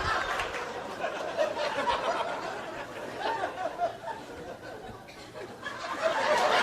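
Audience laughing, dying down about five seconds in, then swelling again near the end.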